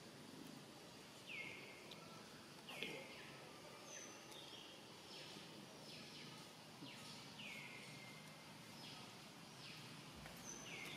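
Faint short high calls, about ten of them at uneven spacing, each sliding quickly down in pitch and then levelling off, over a quiet outdoor background.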